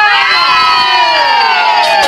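A group of rafters shouting a cheer in unison, one long drawn-out shout of many voices whose pitch slowly falls.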